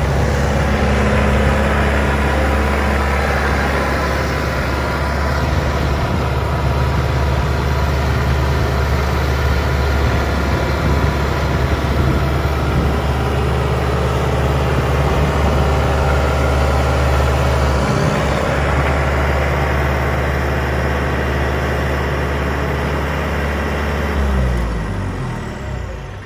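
Kubota M9000 tractor's four-cylinder diesel engine idling steadily. About two seconds before the end it is shut off, and the engine note sinks and dies away.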